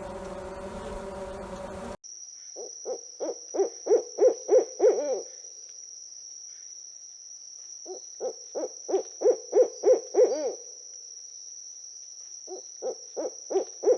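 A buzzing hum that cuts off about two seconds in, then three runs of hoots, each about eight short notes that come faster and louder to the end of the run, over a steady thin high whine.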